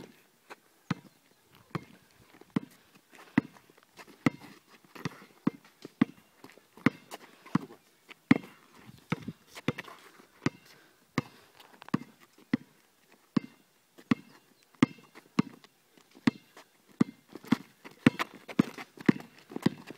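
Basketball dribbled on an asphalt court: a steady run of sharp bounces, about one and a half a second, coming quicker near the end.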